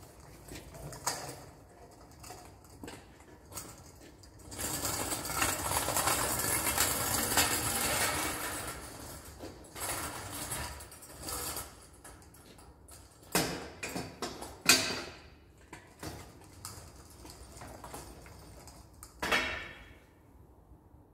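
Homemade RC lawn mower chassis with wheel-hub electric motors: the motors whir in spurts as it drives and flexes on concrete, the longest run lasting about five seconds, while its steel frame clanks and knocks several times, loudest about two-thirds of the way through.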